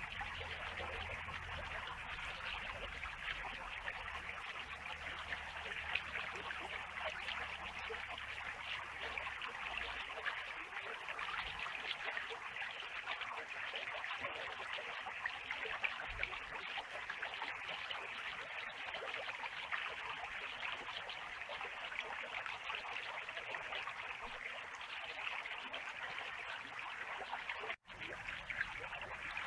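Small clear-water creek (riacho) running and trickling over stones: a steady babble of flowing water. It cuts out for a moment near the end.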